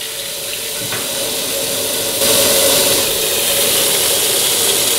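Kitchen tap running into a stainless steel pot, the water splashing into it as the pot fills; it gets louder about two seconds in.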